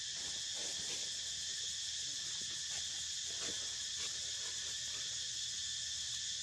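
A steady, high-pitched hiss of insects. A few faint short sounds come through it in the first four seconds or so.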